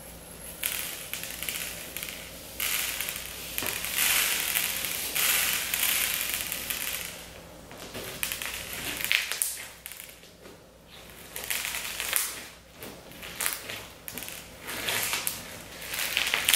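Clear slime packed with sugar beads being kneaded and squeezed by hand, crunching and crackling in bursts as the beads grind together in the slime, with brief pauses between squeezes.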